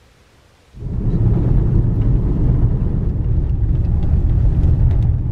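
Toyota RAV4 driving on a dirt road, heard from inside the cabin: a steady low rumble of tyre and road noise with a few light ticks, starting abruptly about a second in.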